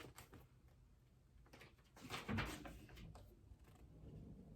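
Faint handling noise from a picture book: light clicks and a short paper rustle about two seconds in.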